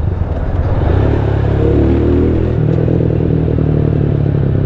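Motorcycle engine running under way, a steady low engine note with road noise; the note shifts about two and a half seconds in.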